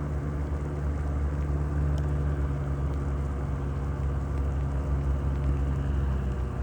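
An engine running steadily at a constant speed: a low, even hum with no rise or fall in pitch, which drops away abruptly near the end.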